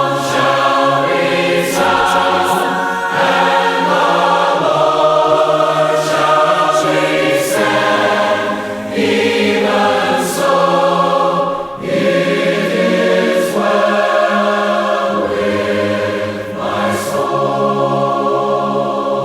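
A choir singing a hymn in held, harmonized chords that change every second or two.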